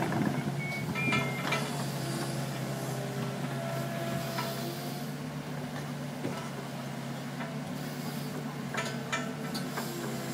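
Compact tracked excavator's diesel engine running steadily under work, with a brief whine about four seconds in and a few metal clanks near the start and near the end as the boom, bucket and tracks move.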